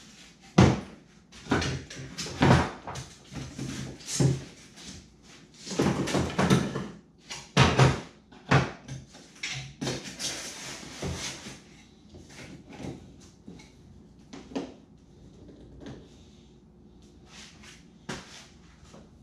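Irregular knocks, clicks and clatter of metal clamps and wood being handled and set against the boat's side, with a couple of longer scraping sounds. Busy for about the first twelve seconds, then sparser.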